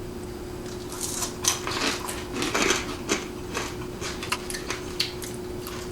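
Fork and plate clinking and scraping in scattered, irregular light clicks, over a steady low hum.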